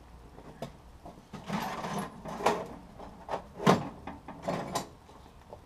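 Irregular knocks, scrapes and clatter of hard objects being handled, with one sharp knock, the loudest, near the middle.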